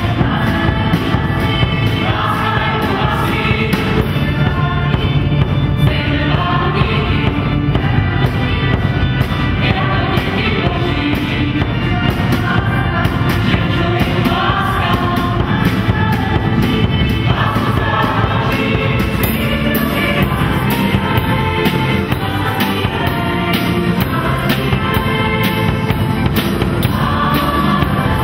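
A choir singing with a live band, keyboard and drum kit backing them, the drums keeping a steady beat.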